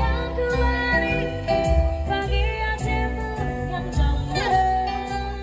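Background music: a melody of held notes over a steady bass line.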